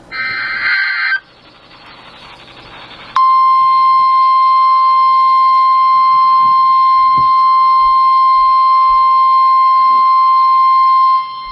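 A short buzzy burst of alert data tones, then hiss, then the steady single-pitch 1050 Hz NOAA Weather Radio warning alarm tone. The alarm tone comes in about three seconds in, holds loud and unchanging for about eight seconds, and cuts off. It announces that a new weather warning is about to be read.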